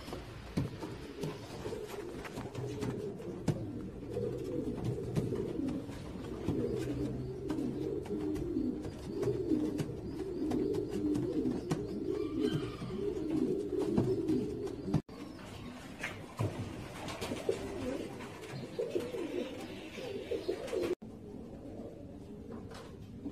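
Several domestic pigeons cooing at once in a small loft, a continuous overlapping rumble of low coos, broken by two brief cut-outs.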